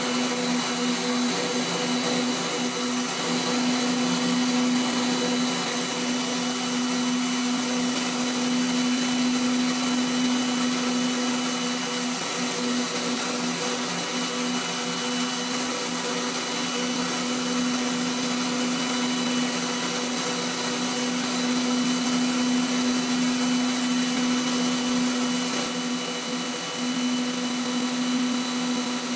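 Waldown tool post grinder on a running lathe, internal grinding the ER40 bore of a collet chuck with coolant: a steady motor whine with a constant hum and a high hiss.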